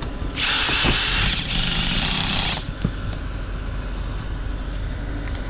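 Cordless drill running on a roofing screw in a metal roof panel, in two runs of about a second each with a short break between, stopping a little under three seconds in.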